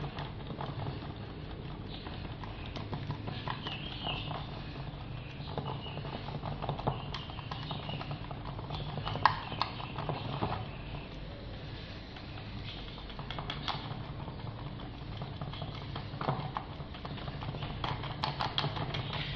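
A paintbrush dabbing resin-soaked fibreglass chopped-strand mat down into a mould, making irregular soft taps, over a steady low hum.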